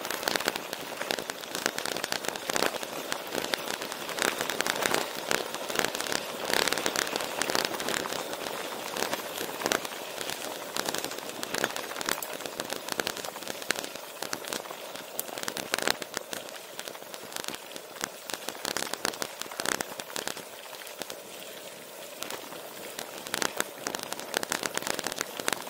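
Gravel bike tyres rolling fast over a loose gravel road on a descent: a continuous crunch and crackle of small stones, full of quick ticks and rattles. It eases off somewhat past the middle and picks up again near the end.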